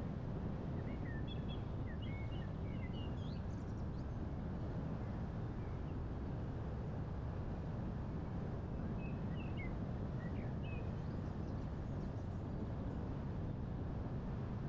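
Steady low rush of wind with small birds chirping in two short bouts, about a second in and again about nine seconds in.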